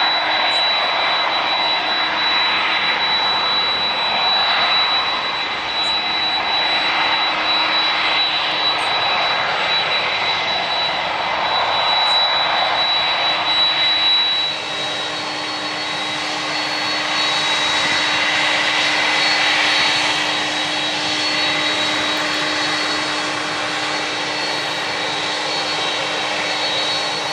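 Jet airliner engines running, a dense rushing noise carrying a steady high whine and a lower hum. About halfway through the sound changes abruptly: the high whine stops and the rush becomes hissier.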